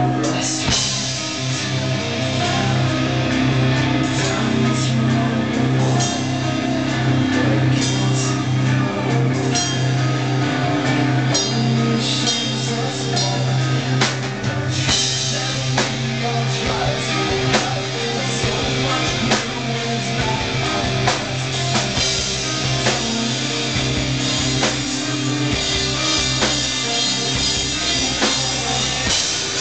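Live rock band playing loudly: electric guitars, bass and a drum kit, with a singer's vocals.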